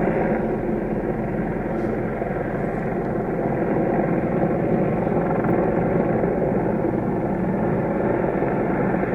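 A steady engine drone without a break: the jet boat's engine idling, with a firefighting helicopter flying within earshot.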